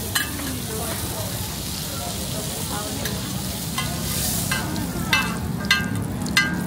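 Roti frying on a flat street-stall griddle, with a steady sizzle. In the second half come five sharp metallic clinks of the utensils against the griddle, about two-thirds of a second apart.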